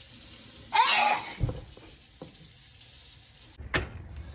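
A person sneezes once, a loud voiced sneeze about a second in, part of a sneezing fit. A steady hiss runs underneath, and there is a sharp click near the end.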